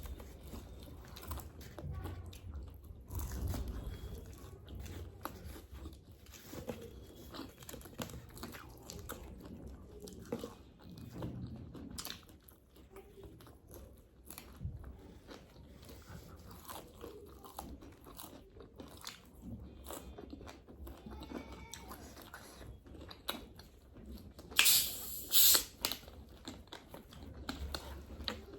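Close-up eating sounds: biting, crunching and chewing on crispy KFC fried food, with two louder crunches near the end.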